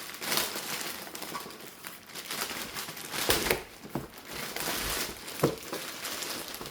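Knife packaging being unwrapped by hand, crinkling and rustling, with a few sharper crackles.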